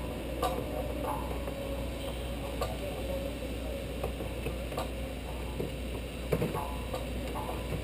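Scattered metallic clinks and knocks from the aluminium truss and chain-hoist rigging being worked, coming every second or two, a few of them leaving a short ringing tone, with a closely spaced pair a little past six seconds in.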